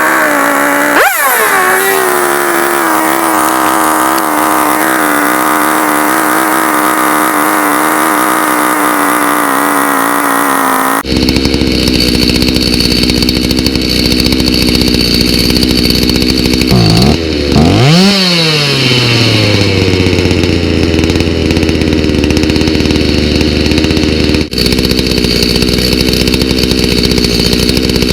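Stihl MS290 chainsaw's two-stroke engine running with no bar and chain on a new aftermarket carburetor: held at high speed for about ten seconds, then dropping abruptly to a steady idle. Near the middle it briefly revs up and falls back to idle.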